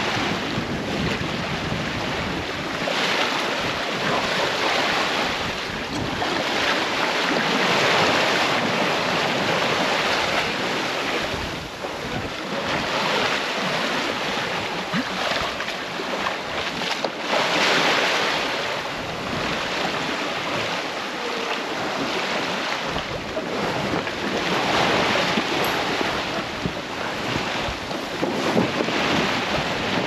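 Sea water rushing and splashing past a sailboat's hull while under sail offshore, with wind buffeting the microphone. The rush swells and fades in surges every few seconds.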